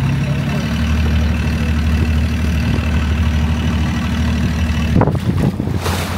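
A small boat's engine running at a steady low idle. About five seconds in, wind starts gusting on the microphone.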